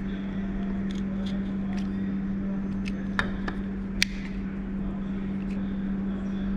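A cutter slicing through heat-shrink tubing on wiring: scattered small clicks and snips, the sharpest about three and four seconds in, over a steady low hum.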